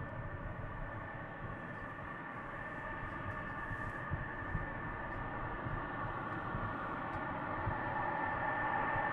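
Lockheed Martin F-22 Raptor's twin Pratt & Whitney F119 turbofans at taxi power: a steady high whine of several tones over a rushing hiss, growing louder as the jet taxis closer.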